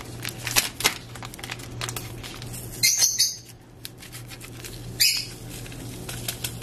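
Small foil seasoning packets of sazón being handled and emptied into a ceramic bowl: crinkling and light tapping, with two louder crinkly rustles about three and five seconds in.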